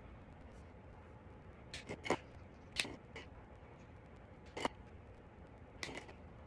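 Felt-tip marker working on sketchbook paper, with about half a dozen short, sharp clicks and taps of the marker and its cap, scattered irregularly over a faint steady background.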